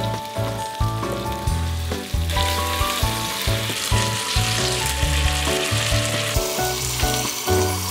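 Vegetables and diced ham sautéing in oil in an enamel pot, sizzling from about two seconds in until near the end, over background music with a steady beat.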